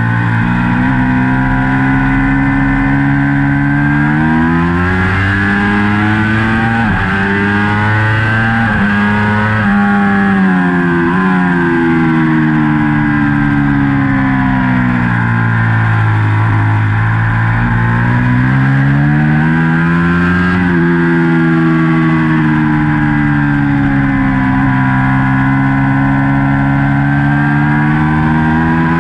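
A 2019 Ducati Panigale V4's V4 engine heard from on the bike at racing speed. It revs up hard under acceleration, with quick upshifts about 7 and 10 seconds in and again near 21 seconds. Between the climbs the pitch falls away as the bike slows for corners, and it climbs again near the end.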